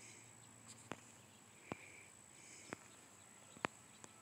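Near-quiet background: a steady faint high whine, sharp clicks about once a second, and a couple of faint short chirps.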